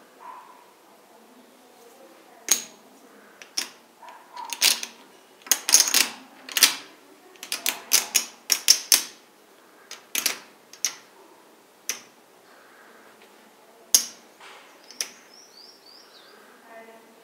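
14-gram Monte Carlo poker chips clicking against each other as a hand picks them up and stacks them: a quick run of sharp clacks through the middle, then a few single clicks near the end.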